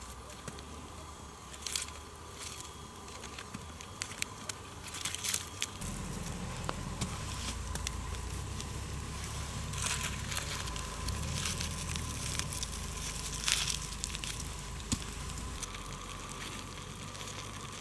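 Campfire crackling with scattered sharp pops, and aluminium foil crinkling as foil-wrapped potatoes are put onto the fire. A low rumble sets in about six seconds in.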